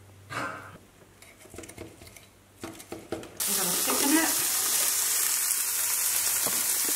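A few faint knocks, then a little over three seconds in a loud, steady sizzle starts abruptly: pigs in blankets (bacon-wrapped sausages) frying in a pan.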